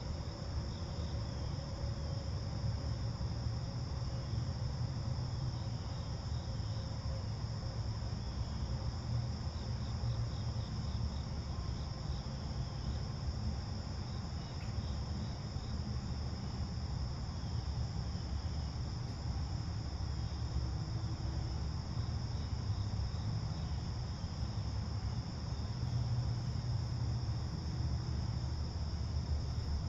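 Crickets chirping in a steady, unbroken high chorus, over a constant low rumble.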